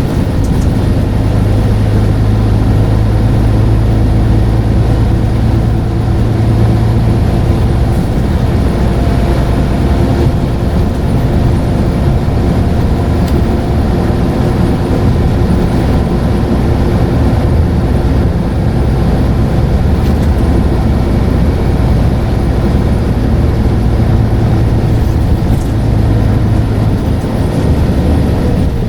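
Scania N94UD double-decker bus's diesel engine running steadily under way, a continuous low drone with road noise.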